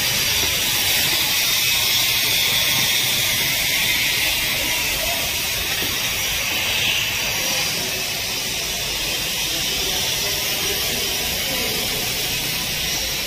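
A steady hiss that holds even throughout, with no distinct sounds standing out.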